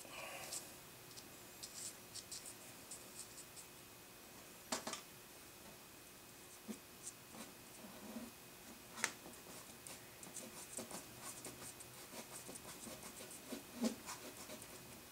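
Short, light scratching strokes of a thin drawing tool on the paper of a charcoal portrait, with a few sharper taps scattered through.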